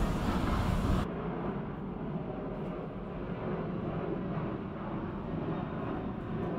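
Steady low outdoor background rumble with no distinct events and no drum strikes. About a second in it drops a little and loses its treble.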